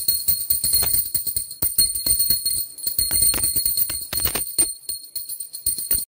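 Small puja hand bell rung rapidly and continuously as the aarti lamp is waved: fast clapper strikes over a bright, high ringing. It cuts off suddenly near the end.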